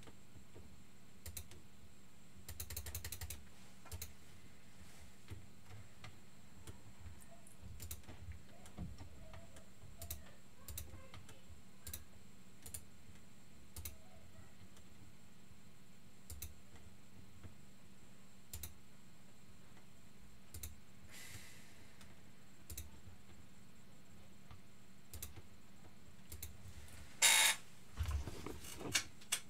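Sporadic faint clicks of computer keyboard keys, one or two at a time, with a short flurry about three seconds in and a louder clatter near the end.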